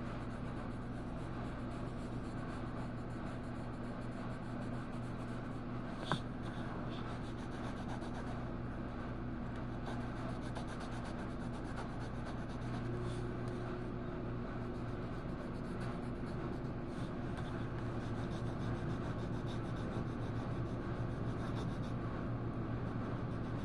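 Scratching of colouring on paper over a steady low hum inside a truck cab, with one sharp click about six seconds in.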